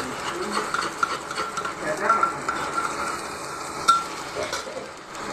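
Metal spoon stirring and scraping arbi (taro root) in a pan of frying spices, with light sizzling and one sharp clink about four seconds in.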